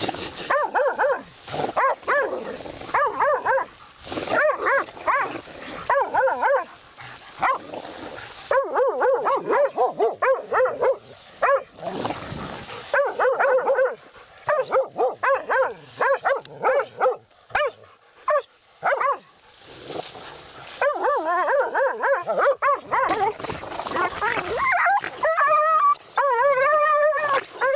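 Several laika hunting dogs barking rapidly and almost without pause, baying at a badger they hold at bay. Near the end they give longer, wavering whining calls.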